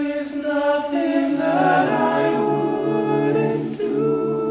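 Male a cappella group singing: a lead voice holds a long sung phrase, lower voices come in beneath it about a second and a half in, and the group settles onto a held chord near the end.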